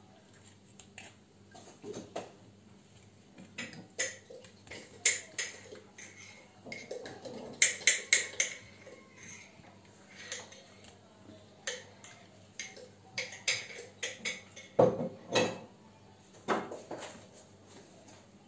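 Metal fork clinking and scraping against a glass bowl of melted chocolate as donuts are dipped and lifted out: irregular sharp clicks, with two duller, heavier knocks near the end.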